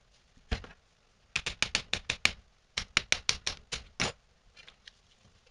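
One sharp click, then two quick runs of about seven sharp taps each, about seven a second, as the transformer's core and housing parts are fitted back together.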